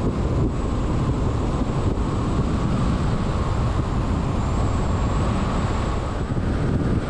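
Steady road and wind noise of a vehicle driving at highway speed, a loud low rumble that holds even throughout.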